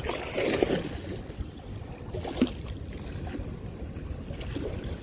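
Steady rush of water flowing through a dam spillway, with brief handling rustles and one sharp click about two and a half seconds in.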